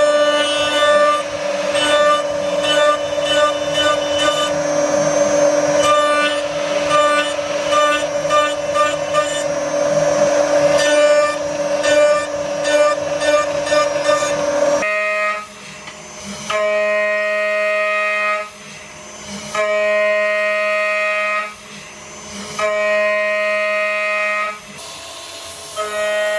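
A DIY steel CNC router's VFD-driven spindle whining steadily while the end mill cuts steel, with an irregular crackle from the cut. About halfway through this changes to the axis drive's whine in blocks of about two seconds, stopping and starting as the axis moves.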